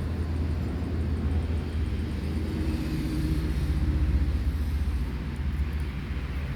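Low, steady rumble of a motor vehicle, its engine tone swelling a little around the middle and then easing off.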